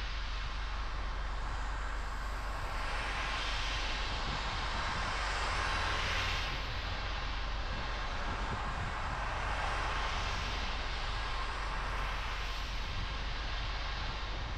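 Car driving on a rain-soaked road: a steady low road rumble under a hiss of tyres on wet tarmac, which swells and fades four times.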